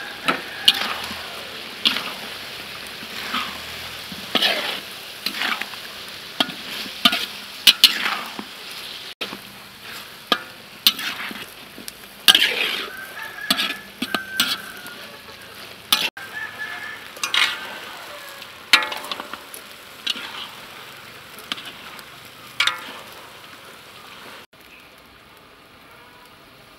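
A spatula scraping and knocking against a wok as duck pieces are stir-fried, with irregular sharp strokes over a steady sizzle of hot fat. Near the end the stirring stops and only a quieter, even background remains.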